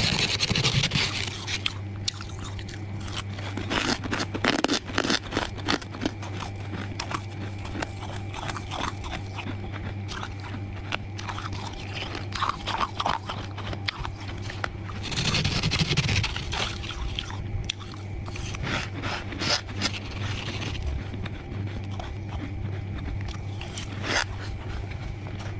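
Soft freezer frost being scraped and crunched between the teeth: a dense run of short crackly crunches and scrapes, with louder scraping sweeps near the start and about fifteen seconds in. A steady low hum runs underneath.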